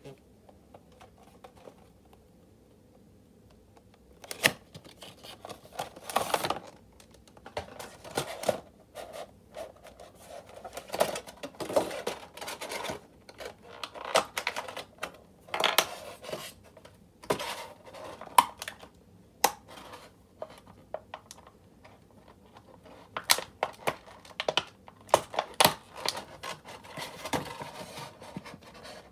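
Stiff clear plastic packaging being handled and pried open: irregular clicks, crackles and taps of hard plastic, some against a hard desktop, starting about four seconds in.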